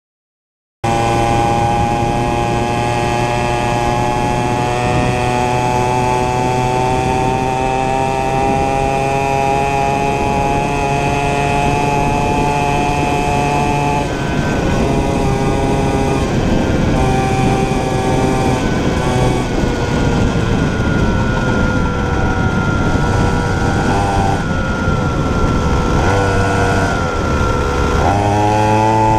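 Small 49cc two-stroke mini cross engine running hard at high, fairly steady revs under the rider, its pitch creeping slowly upward. From the middle on the revs waver up and down, and near the end they climb sharply as the throttle opens.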